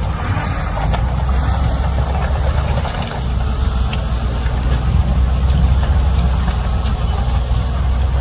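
Heavy diesel engine of earthmoving machinery running steadily.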